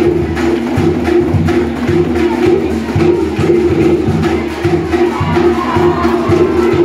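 Fast Cook Islands drum-dance music with a quick, steady beat of drum strokes, playing loudly throughout.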